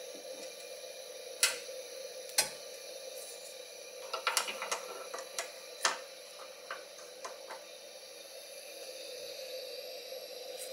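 A few sharp clicks and light taps over a steady hiss: two loud clicks early, then a quick cluster of clicks a few seconds in, thinning to faint ticks.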